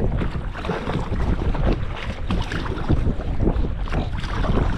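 Wind buffeting the camera microphone as a steady low rumble, with water splashing and lapping from a kayak paddle dipping in alternating strokes.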